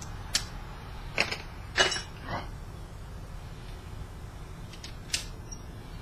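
Small metal hand tools and parts clicking and clinking as they are handled and set down on a workbench: four light clicks in the first two and a half seconds and one more about five seconds in, over a steady low hum.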